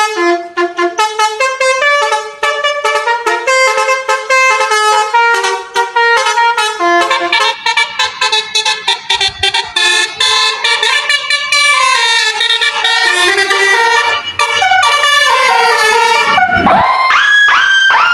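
Multi-tone bus horn playing a fast melody of short honked notes, like an Indonesian 'telolet' bus horn. Near the end the notes give way to rising glides.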